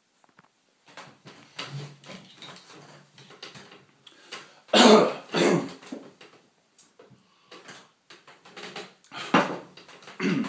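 A man coughing and clearing his throat: two loud bursts about halfway through and two more near the end, with soft rustling and small knocks in between.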